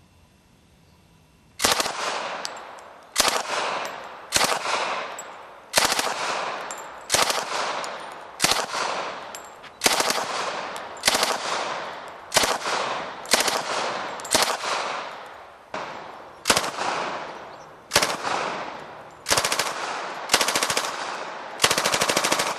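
A fully automatic firearm fired in short bursts, about seventeen of them roughly a second apart, each burst a rapid string of shots that rings off in echo. The firing starts about a second and a half in.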